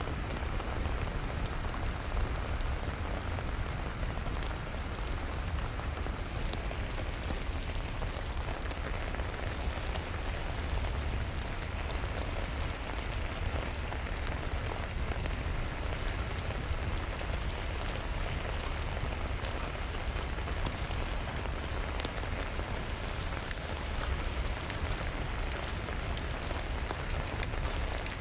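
Steady, even rain falling, with a low rumble underneath and a few brief, sharp clicks scattered through it.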